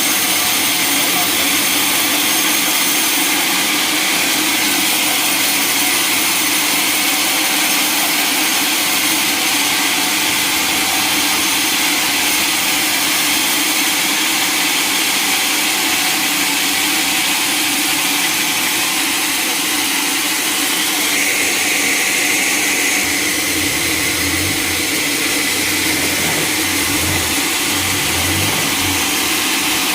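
Sawmill saw running steadily while it cuts through a log: a loud, even, hissing machine noise. A low rumble comes and goes over the last several seconds.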